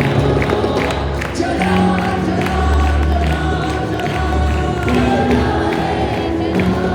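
Live worship music: a band with drums and bass playing while many voices sing together.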